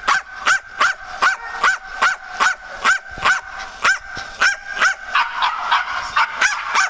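Small terrier barking at a steady, rapid rhythm, about two and a half short high-pitched yaps a second, the barks growing less distinct near the end.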